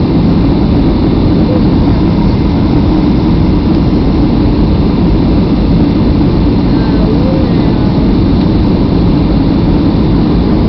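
Airliner cabin noise heard from a window seat over the wing during the descent to land: a loud, steady rush of jet engines and airflow, heaviest in the low end and unchanging throughout.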